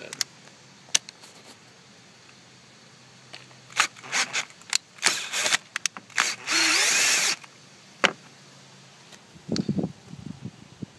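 A power tool running for about a second near the middle, among scattered clicks and knocks.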